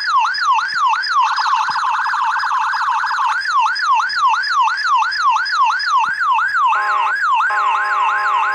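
Electronic police siren in a fast yelp, its pitch sweeping up and down about four times a second. About seven seconds in, a steady horn-like tone joins it, breaks off briefly, then carries on under the sweep.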